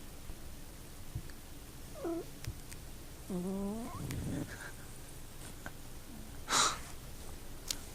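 Domestic cat making short 'prrt' trilling calls: a brief call about two seconds in, then a longer one rising in pitch. A loud, short, noisy burst comes near the end.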